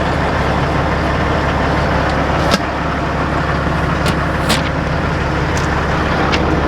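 Semi truck's diesel engine running steadily, heard from inside the cab, with a few short sharp clicks.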